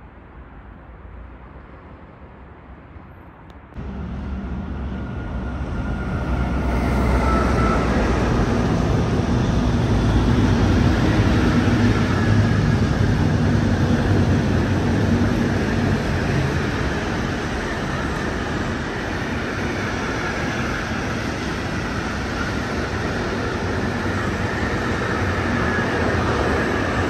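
Freight train of container and swap-body wagons passing through the station: a steady, loud rumble and clatter of the wagons on the rails, with thin high tones from the wheels riding over it. The first few seconds hold only a quieter distant rumble before it jumps up abruptly about four seconds in.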